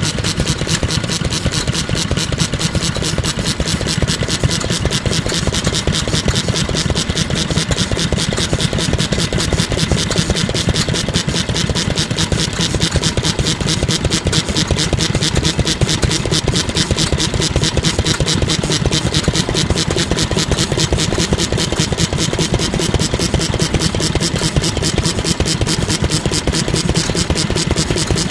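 Kubota Type AH 2 hp single-cylinder oil engine running steadily, a fast even beat of firing and valve gear with no change in speed.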